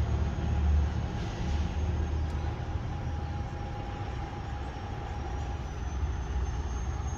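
Steady low engine rumble running, with a faint steady whine over it.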